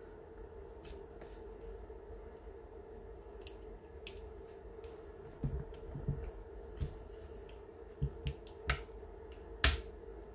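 Hands working a small metal heart cutter and soft foam clay on a floured board: scattered soft taps and knocks, with one sharp click near the end, over a faint steady hum.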